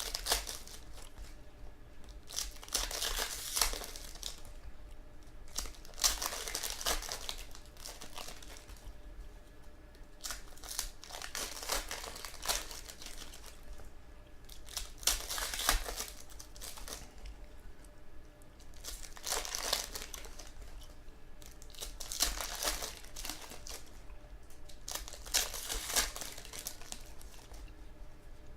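Foil trading card pack wrappers crinkling and tearing as packs are opened and the cards handled, in rustling bursts every few seconds.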